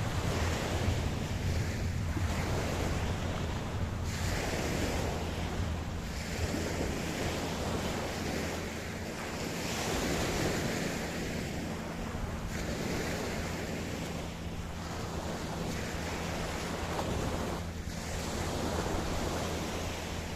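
Ocean surf breaking on a beach, a continuous wash of waves that swells and eases every few seconds over a steady low rumble.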